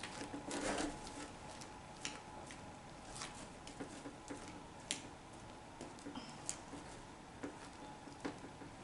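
A spoon stirring a sticky slime mixture of glue, baking soda and contact lens solution, with faint, irregular clicks and taps of the spoon against the bowl and a short scraping rustle about a second in.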